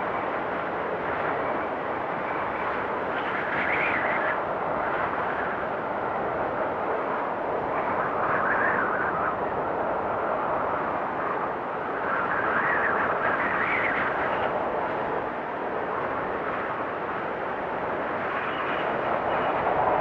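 Strong blizzard wind blowing hard and steadily. Gusts swell and rise in pitch several times.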